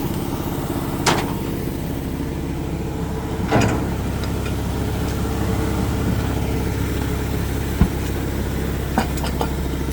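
An engine idling steadily, with a few short sharp knocks and clicks over it.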